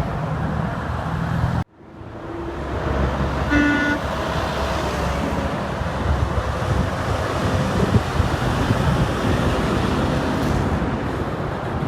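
Highway traffic rushing past, with a momentary dropout to silence near two seconds in, then a short single honk from a passing vehicle's horn about three and a half seconds in.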